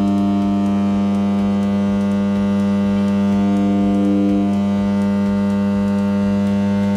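Subwoofers driven by a QSC USA 1300 power amplifier playing a steady 100 Hz sine test tone, heard as a loud hum rich in overtones. About three and a half seconds in it grows slightly louder and harsher as the amplifier is pushed to the edge of clipping, then eases back.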